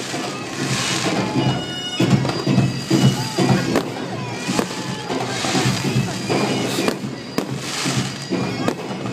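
Bagpipes playing a droning tune while aerial firework shells burst overhead: a few sharp bangs and several bursts of crackling hiss over the pipes.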